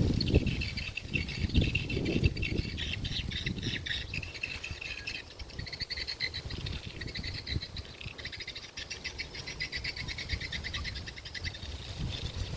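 Small animals chirping in rapid, high-pitched pulsed trills, one after another, with low rumbling thumps during the first couple of seconds.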